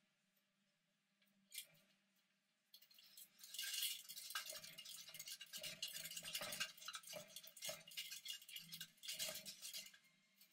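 Degus scrabbling about in their enclosure: a scratchy rustling full of small clicks and light knocks, starting about three seconds in and dying away near the end.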